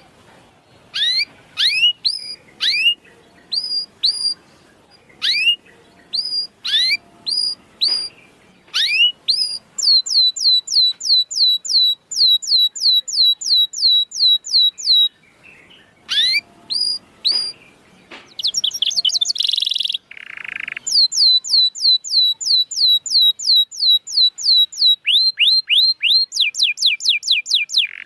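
Canary song used as a lure to start up a canary that has stopped singing: single rising chirps about a second apart, then a run of fast repeated sliding notes. About two-thirds through comes a brief harsh, buzzy note, followed by another quick rolling series of notes.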